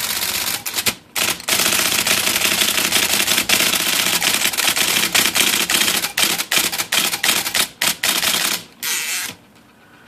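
IBM Selectric II electric typewriter typing a fast run of characters: steady motor running, then rapid, even clattering of the typeball strokes for about seven seconds, stopping near the end. The cycle clutch is doubling up, sometimes running two cycles for one keystroke, which the repairer traces to the clutch trip adjustment after refitting the motor-train hub.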